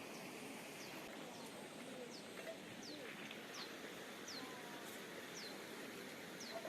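A bird calling with a short, high note that falls in pitch, repeated about nine times, a little over once a second, over a steady outdoor background hiss.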